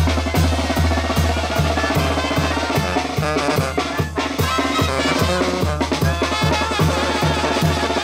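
Zacatecan tamborazo band playing: the tambora bass drum with its mounted cymbal keeps a steady beat a little over twice a second under a snare drum, while a sousaphone, trombones and clarinets play the melody.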